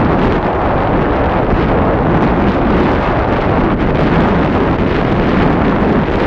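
Strong wind buffeting the camera's microphone while the sailboat is under sail: a loud, steady low rush with no break.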